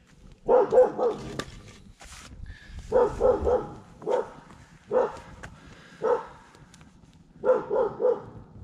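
A dog barking repeatedly, with single barks and quick runs of three barks a second or two apart.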